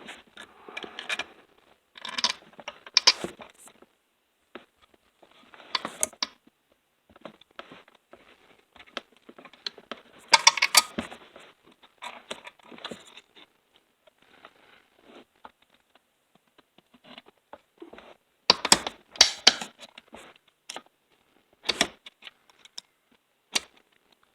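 Screwdriver and steel chain brake spring clicking and scraping against the chainsaw's brake parts in irregular bursts, as the spring is levered toward its pin. The loudest clatters come about ten seconds in and again near twenty seconds.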